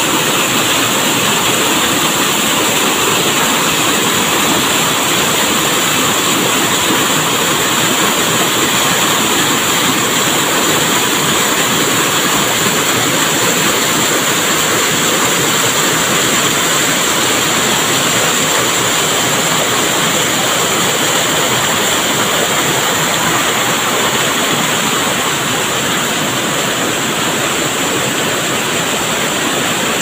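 A small waterfall pouring down a narrow rock chute and the shallow stream below rushing over stones: a loud, steady rush of water, a little softer over the last few seconds.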